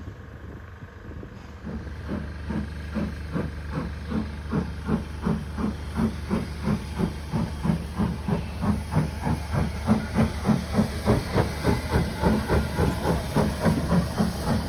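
Steam locomotive working hard, its chuffing exhaust beats starting about two seconds in at roughly three a second and growing louder as it approaches, over a steady low rumble.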